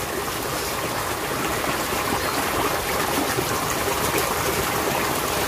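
Steady rushing noise of flowing water.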